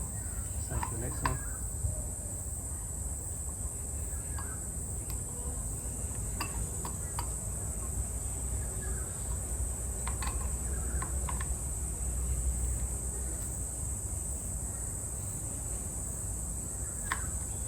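Steady high chirring of crickets, with a scattered handful of light clicks from a spoke key turning the spoke nipples on a hub-motor wheel.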